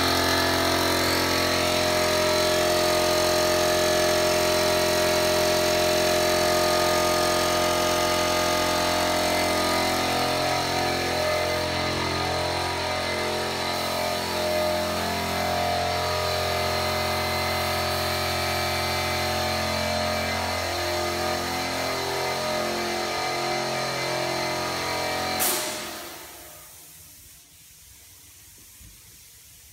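Air compressor running under load with a steady hiss of compressed air from the paint spray gun, its pitch wavering in the second half. About 25 seconds in there is a sharp click and the machine winds down and stops.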